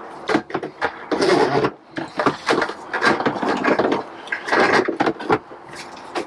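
Irregular knocks, rattles and scrapes of a plastic fuel jug, hose and battery-powered fuel transfer pump being handled while the pump's pickup tube is fitted into the jug.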